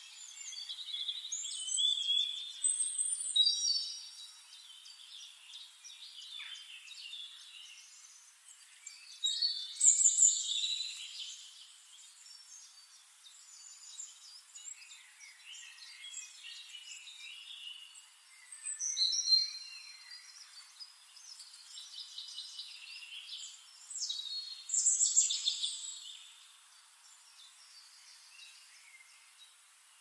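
Songbirds singing: four loud phrases of high, quick chirping song, with fainter chirps and trills between them.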